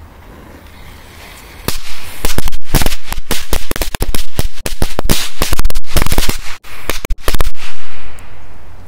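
A firecracker belt, a strip of small firecrackers, going off in the cab of a toy truck. A faint hiss is followed, just under two seconds in, by a rapid, irregular string of loud bangs lasting about six seconds.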